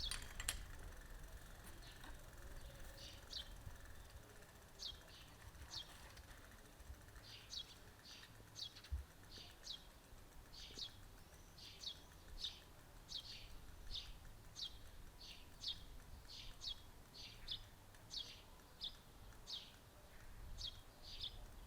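A small songbird giving short, high chirps over and over, roughly one or two a second, above a faint low outdoor rumble.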